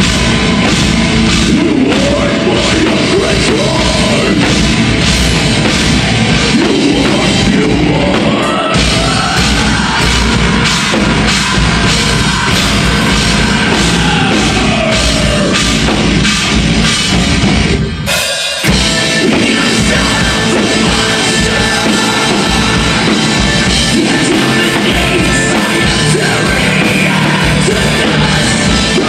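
Death metal band playing live: electric guitars, fast drumming and vocals. The band stops for an instant about eighteen seconds in, then comes back in.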